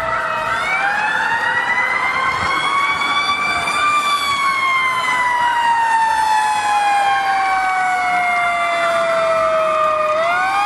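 Fire engine siren wailing in long slow sweeps. It rises for about three seconds, falls slowly for about six, then starts to rise again near the end, with a second siren tone overlapping.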